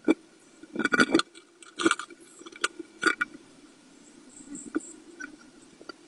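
Eurasian blue tit's claws scratching and scrabbling on the wooden nest-box wall as it comes in with moss: a handful of sharp scrapes, loudest in the first three seconds, over a faint steady hum.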